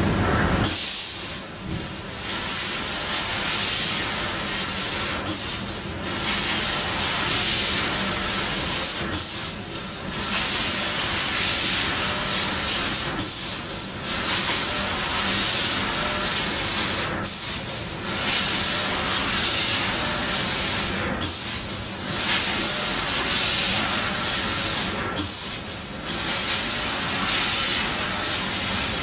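Fiber laser cutting machine cutting sheet steel, its cutting gas hissing loudly and steadily from the heads. The hiss drops out briefly about every four seconds.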